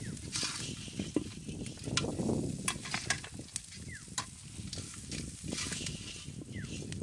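Crabs frying in hot oil in an iron kadai, sizzling, with repeated metallic clicks and scrapes of a slotted steel spatula against the pan as the fried crabs are lifted out.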